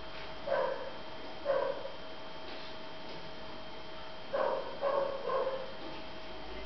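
A sleeping dog making short, pitched squeaky snorts and muffled little woofs in its sleep: two about a second apart, then three in quick succession.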